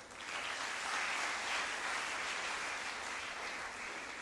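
Audience applauding: even clapping that starts at once, swells within the first half second and slowly eases off toward the end.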